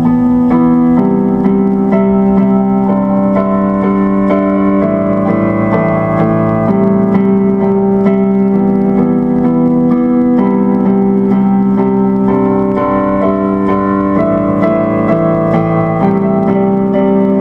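Instrumental keyboard music: piano-like chords of held notes, changing every second or two at an even, unhurried pace.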